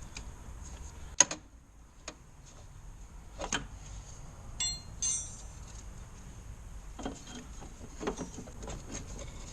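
Scattered sharp clicks and light metallic clinks of hand tools or gear being handled, the loudest click about a second in and a short ringing clink near the middle, over a steady low rumble.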